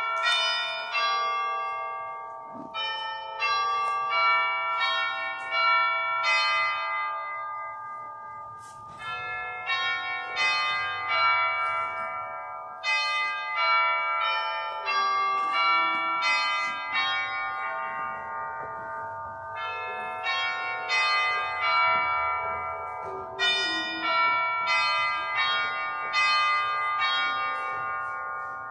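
Church bells ringing a long run of struck notes in phrases, each note ringing on and fading, with short lulls about 8 and 19 seconds in.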